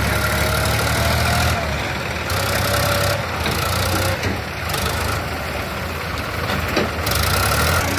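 Sonalika DI-750 tractor's diesel engine running steadily as it pulls a trailer loaded with soil across loose dirt.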